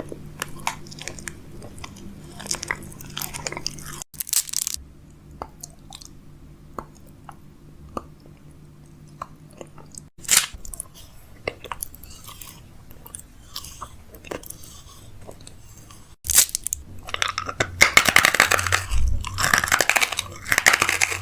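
Close-up crunching and chewing of crisp food, a run of sharp crackly bites heard in short segments, growing dense and louder for the last few seconds.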